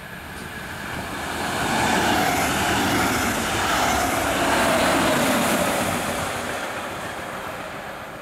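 Double-deck regional push-pull train, with a DB class 143 electric locomotive pushing at the rear, passing by on the rails. Its rolling noise swells over the first two seconds, holds for about three seconds as the coaches and locomotive go past, then fades as it moves away.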